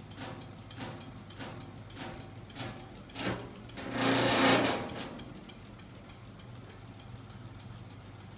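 Homemade magnet-driven flywheel rig running: a steady low hum from its small 24 V electric motor, with a regular knock from the crank mechanism somewhat under twice a second. Around the middle a loud rushing noise swells for about a second, and after it the knocks fade, leaving the hum.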